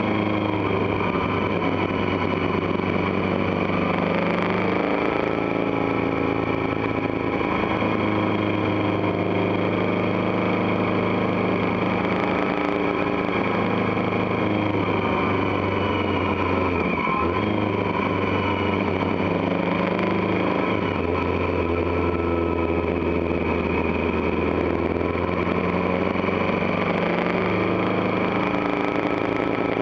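Motorcycle engine running under way at road speed, its pitch shifting up and down several times with throttle and gear changes.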